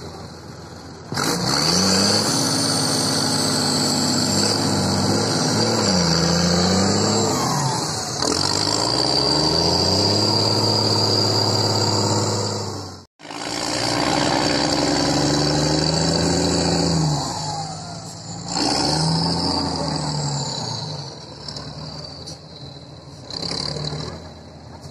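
Trial truck's engine revving hard again and again, its pitch rising and falling as the truck is driven through deep mud. The sound breaks off abruptly about halfway through, then the revving resumes and eases off in the last few seconds.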